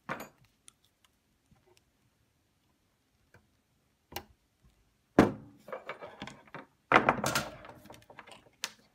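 Side cutters snipping off a resistor's excess lead with a sharp click about four seconds in. Two much louder knocks follow, each trailing into a second or more of rattling clatter.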